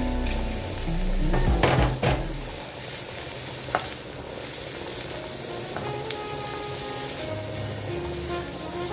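Food sizzling as it fries in a pan, a steady hiss, with a few sharp knocks of a utensil on the pan about two seconds in and again near four seconds.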